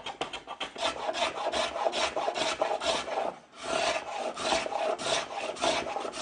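Edged hand tool cutting along the edge of a wooden stool top, rounding it over in quick strokes, several a second, with a short break about three and a half seconds in.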